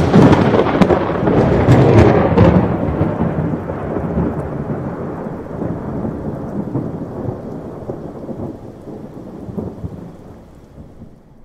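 A thunder peal: a sudden loud crack with crackling for the first couple of seconds, then a long rumble that slowly dies away.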